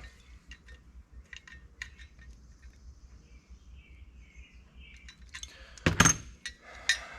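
Light clicks and clinks of small metal carburetor parts being handled and fitted, with one sharper, ringing metal clink about six seconds in.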